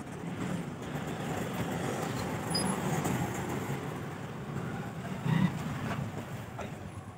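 Steady background rumble of road traffic, with one short louder sound about five seconds in.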